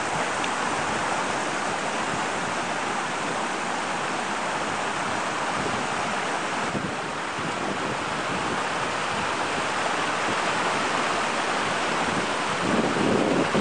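Small woodland brook flowing: a steady rushing of water. Near the end a low buffeting of wind on the microphone rises over it.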